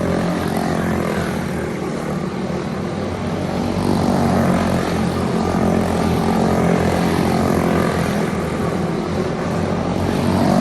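Racing karts with small four-stroke Briggs & Stratton Animal engines running hard around the track: a dense, steady engine drone from several karts at once, a little louder in the second half.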